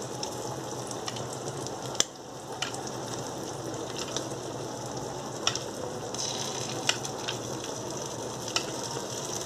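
Eggs frying in oil in a pan, a steady sizzle, as tomato sauce is spooned around the edges. A few sharp light clicks of the spoon tapping through it, the sharpest about two seconds in.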